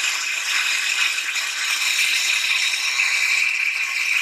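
Alternator on a running 2000 Audi A6 heard through a stethoscope probe: a steady, gritty, high-pitched rattle with no deep sound in it. Its bearing noise is nearly as strong as the serpentine belt tensioner roller's, which is the main source of the car's squeal.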